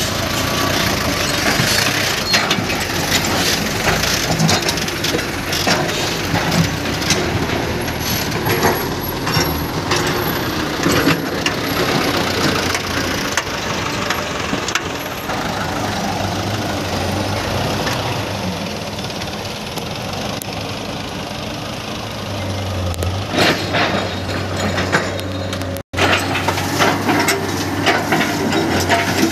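Heavy diesel engines running steadily while excavators load dirt and rock into a dump truck, with frequent clanking, scraping and crashing of material. The sound cuts out for an instant near the end.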